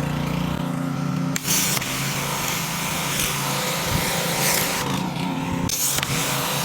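Pressure washer engine running steadily while its high-pressure water jet hisses against the pavement, pushing grime toward a drain. The spray cuts in about a second and a half in and breaks off briefly near the end before starting again.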